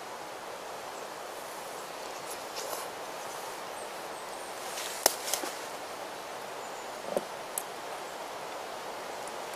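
Metal spoon clicking and scraping a few times against a Zebra stainless steel billy pot while food is eaten from it, the sharpest click about halfway through, over a steady outdoor background hiss.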